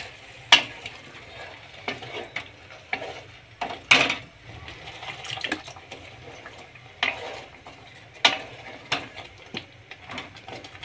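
Wooden spatula stirring and scraping thick papaya-and-mango chutney in a nonstick kadai, knocking sharply against the pan about seven times at uneven intervals, over a low sizzle of the simmering mixture.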